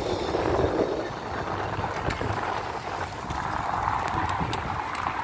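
Pushchair wheels rattling over cobblestones, a steady rough noise broken by scattered sharp clicks.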